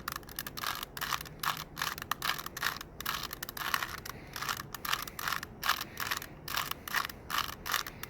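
Rubik's cube being twisted quickly by hand, a run of plastic clicks and scrapes as the layers turn, several a second.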